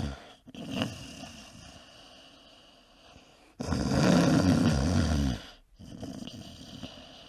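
A man snoring: one loud snore lasting nearly two seconds about halfway through, between quieter, breathy breaths.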